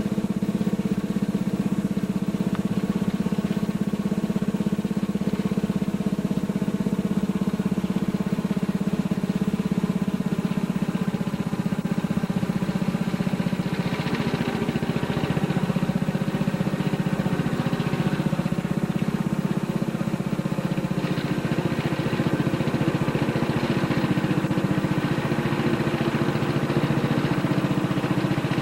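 Riding lawnmower engine running steadily, its note shifting slightly higher in the last few seconds.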